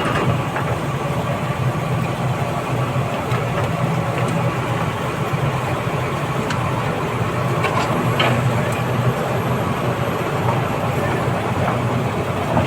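Komatsu D85ESS bulldozer's diesel engine running steadily at a constant pitch, with a few faint metallic clicks.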